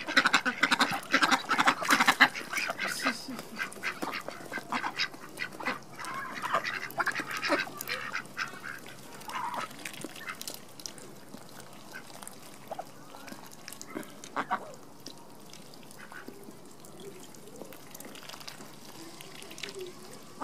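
Flock of Indian Runner ducks quacking: a dense run of loud, overlapping quacks for the first several seconds, thinning to scattered single calls, with a couple of louder ones about two-thirds of the way through.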